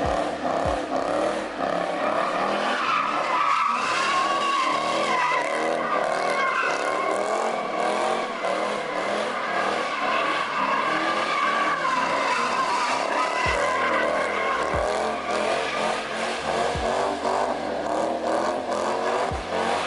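A car drifting, its tires giving a long, loud squeal that wavers in pitch over the sound of the engine.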